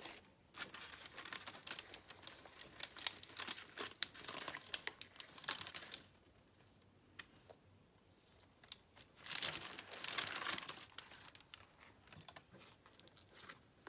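Hands kneading and stretching butter slime mixed with foam beads on a plastic sheet: crinkling plastic and sticky crackling of the slime, in two spells with a pause of about three seconds between them and scattered clicks after.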